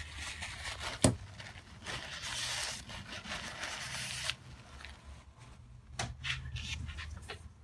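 Handling and rubbing of a pocket knife blade: a sharp click about a second in, then a steady stretch of rubbing and scraping for about two seconds, and a few lighter clicks near the end.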